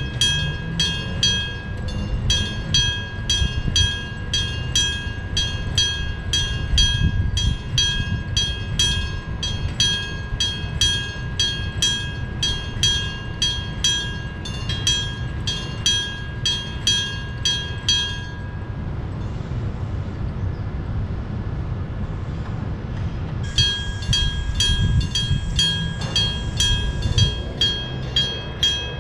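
Electric-bell (denshō-type) railway level crossing bell ringing at an even pace of about two strokes a second, over the continuous low rumble of a train with nose-suspended traction motors passing. The bell stops about 18 seconds in and starts again about five seconds later while the train rumble carries on.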